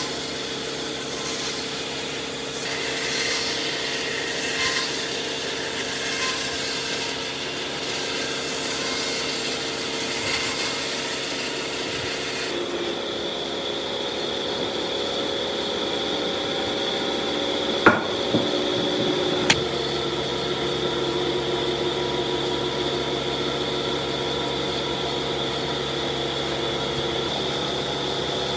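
A woodworking power tool runs steadily while wood is cut or abraded against it, with a rubbing, rasping texture. The sound shifts about twelve seconds in, and two sharp clicks come about a second and a half apart a little past the middle.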